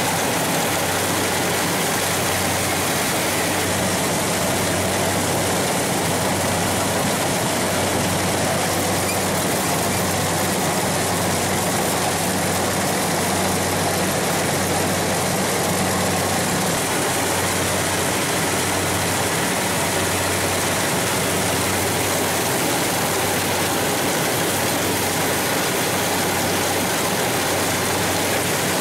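Rice combine harvester running steadily as it harvests: a constant low engine hum under an even mechanical rush.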